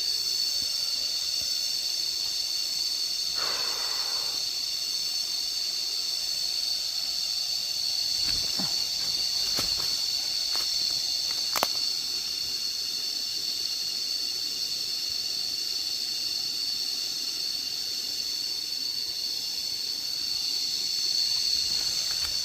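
Cicadas droning in a steady, high-pitched chorus, with a few brief clicks in the middle.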